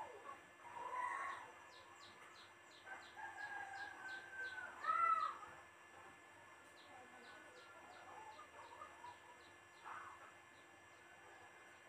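A rooster crowing: a short call about a second in, then a long crow from about three seconds in that ends in a loud rising-and-falling note near five seconds. Faint high ticking, about three a second, runs underneath.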